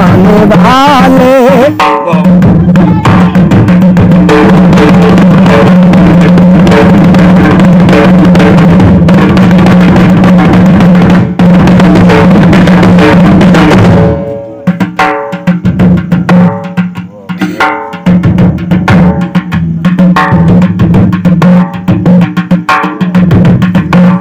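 Punjabi folk music driven by dhol drumming over a steady low drone. A sung phrase dies away about two seconds in. About fourteen seconds in, the dense drumming breaks into sparser, separated beats.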